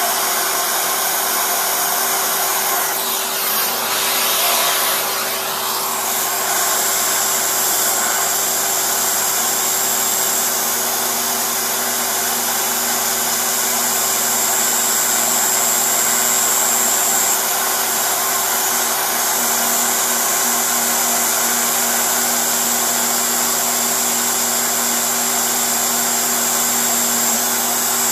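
Small CNC router spindle running at high speed as its end mill cuts a pocket into a clear plastic block: a steady rushing noise with a thin high whine.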